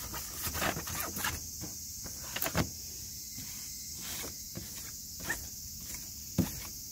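Sandpaper on a hand sanding block scraping over a car's painted body panel in short, irregular scratchy strokes, with a sharp knock near the end as the block bumps the panel. A steady high hiss runs underneath.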